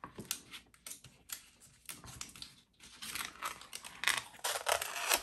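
Paper crinkling and rustling as a white release backing is peeled off a sheet of self-adhesive black box-wrapping material, in short irregular spells with small clicks between them, fuller about three seconds in.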